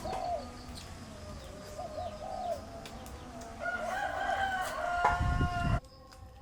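Chickens clucking and a rooster crowing, with a long crow beginning about three and a half seconds in that is cut off abruptly near the end.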